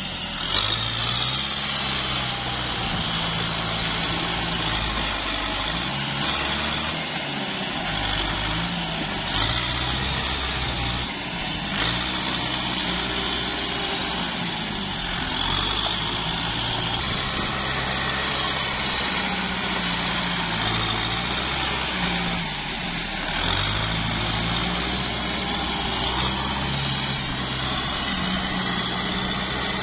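Kubota tractor's diesel engine running under load, its speed rising and falling again and again, over the wash of mud and water churned by the wheels and dozer blade.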